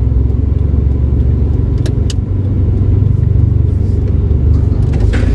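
Car's engine and road rumble heard from inside the cabin as it drives, a steady low rumble with a couple of light clicks about two seconds in.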